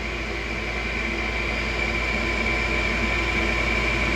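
York gas furnace starting up before the burners light, its draft inducer motor running as a steady hum with a high whine that slowly grows louder.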